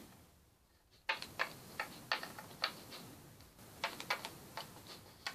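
Light, irregular small plastic clicks and taps, a few a second, starting about a second in: tiny toy accessories (earrings and a bow) being handled and pulled off a Littlest Pet Shop figure.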